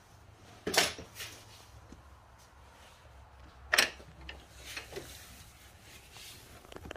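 Handling noise as the phone is moved beneath the engine: two short knocks, about a second in and again near four seconds, and a few faint ticks, over a faint low hum.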